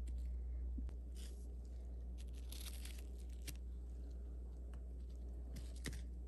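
Faint rustles and small clicks from handling plastic toy figures, over a steady low hum.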